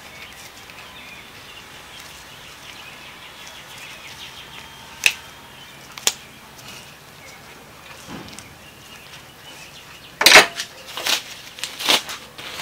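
Sharp metal clicks from an FLP adjustable kickstand for a Honda Ruckus as its ball-bearing leg mechanism is worked by hand: two single clicks about a second apart near the middle, then a quick run of louder clacks near the end as the kickstand is handled and set down on the bench.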